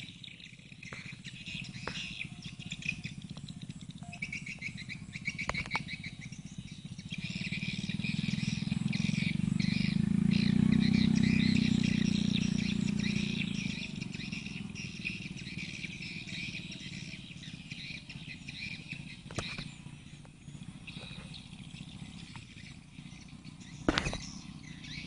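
Swiftlet lure-call recording played through speakers: dense, rapid, high-pitched chirping and twittering of edible-nest swiftlets. A low rumble swells up and fades away in the middle, with a few sharp clicks.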